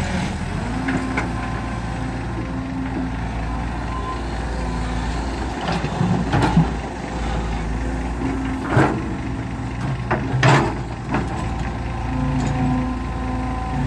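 Hydraulic excavator's diesel engine running steadily under working load as it digs and swings. Several loud crashes stand out: about six seconds in, soil and rocks are tipped into the dump truck's steel bed, and there are two more at about nine and ten and a half seconds as the bucket works.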